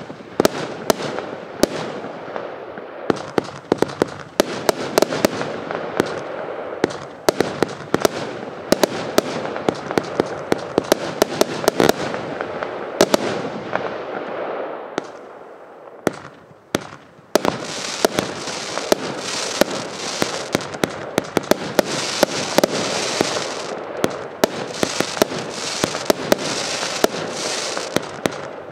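A 100-shot compound firework cake firing in quick succession: rapid sharp launch and burst reports over a continuous crackling wash. After a brief lull a little past halfway, the firing resumes with a dense high hiss under the reports.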